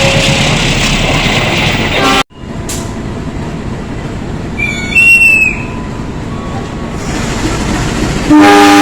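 Passing train noise cuts off abruptly. About five seconds in comes a brief high gliding tone, and near the end a loud locomotive horn blast that sounds several notes at once: the semboyan 35 horn signal of an Indonesian train.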